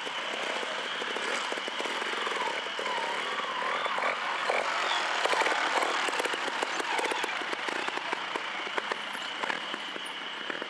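Trials motorcycle engine revving up and down in short bursts, louder in the middle, with scattered clicks and knocks over a steady high-pitched tone.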